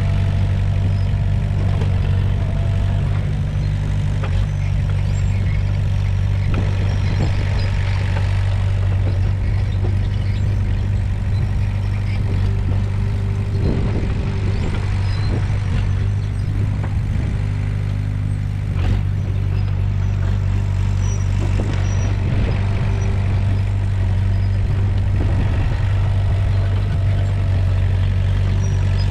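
Komatsu bulldozer's diesel engine running steadily, with a few short knocks over it.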